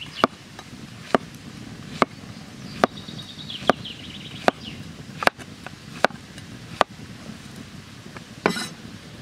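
A large knife chopping a zucchini into rounds on a wooden board: a sharp knock each time the blade cuts through and strikes the board, about one cut every 0.8 s. A longer scuffing sound comes near the end.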